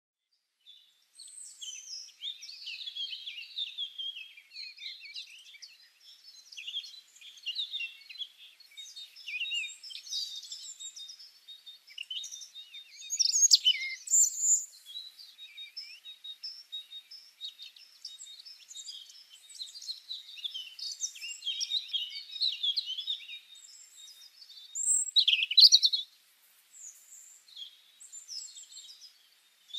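Many small birds chirping and singing over one another in woodland, a dense mix of short high chirps and trills, with a couple of louder, closer calls midway and near the end.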